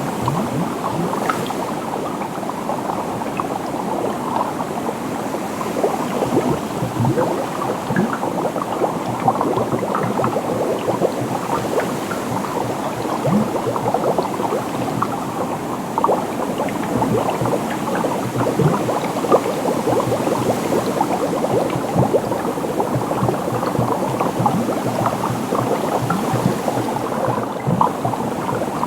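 Liquid bubbling with a dense, continuous crackle of many small bubble pops every second.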